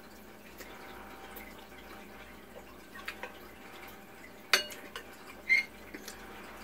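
Quiet eating sounds: faint chewing with a few sharp clicks, the loudest about four and a half seconds in.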